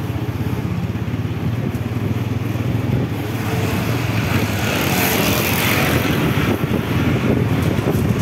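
Small motorcycle engine running steadily while riding slowly.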